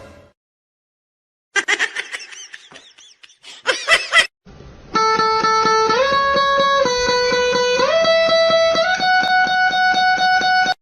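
Music: after a second or so of silence and a few short wavering sounds, a held instrument tone steps up and down in pitch about once a second.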